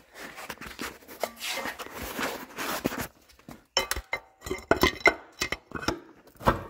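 Rustling handling noise, then a run of sharp metallic clinks and taps from about halfway on: metal parts and tools knocking together while the hoisted engine is worked on.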